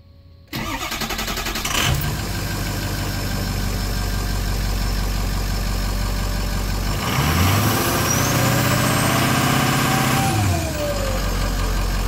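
Ford 6.0 Power Stroke V8 turbodiesel cranking for about a second and a half, catching and idling, now that the failed FICM has been replaced with a rebuilt one. About seven seconds in it is revved once for about three seconds, with a rising whistle, then drops back to idle.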